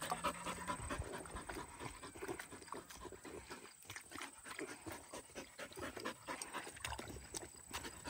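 Australian cattle dog panting with its tongue out.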